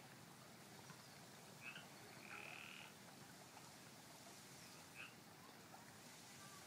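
Frogs calling, faintly: a short chirp about two seconds in and another near the end, with a longer steady call of about half a second between them.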